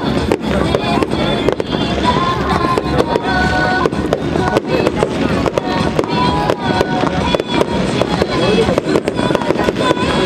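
Fireworks bursting in rapid succession, a dense run of sharp bangs and crackles, with music playing along.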